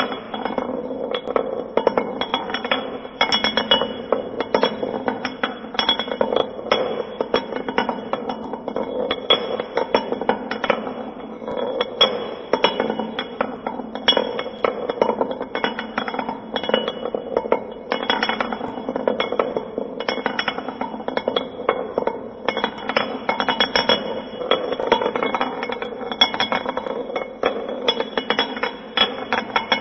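Metal gear wheels rotating: a continuous clatter of rapid, irregular metallic clinks and clanks over a steady ringing metal tone.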